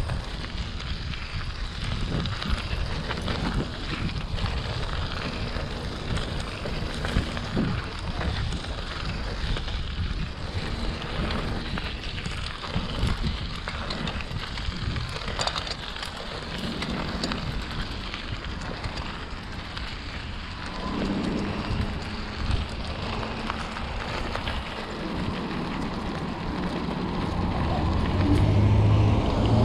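Wind noise on the microphone and the rattle of a bicycle being ridden, with small knocks throughout. From about two-thirds of the way in, a motor vehicle's engine hum comes in and grows louder near the end.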